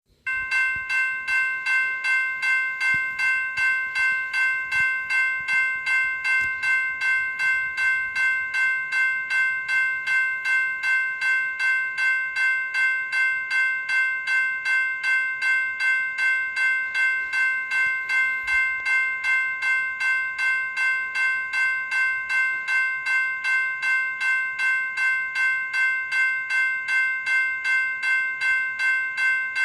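General Signals Type 2 E-Bell, an electronic bell, ringing continuously: a bright, multi-pitched ding repeated evenly at about two to three strikes a second.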